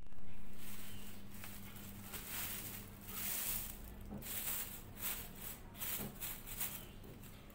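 Thin plastic carrier bags rustling and crinkling in irregular bursts as a hand grips and pulls them open. It begins with a sudden knock of the camera being handled, and a faint steady hum runs underneath.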